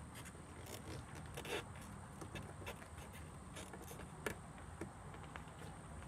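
Scattered small plastic clicks and rattles of hands working the side mirror's wiring connector and door parts, with two sharper clicks about a second and a half in and past the four-second mark, over a faint steady background hum.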